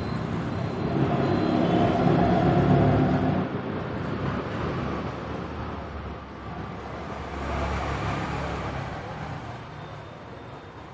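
Road traffic hum, with a motor vehicle passing that is loudest about two to three seconds in, and a fainter one around eight seconds.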